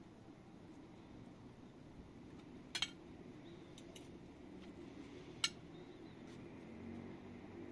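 Metal cutlery clinking sharply against a plate twice, a little under three seconds apart, over a faint low background hum.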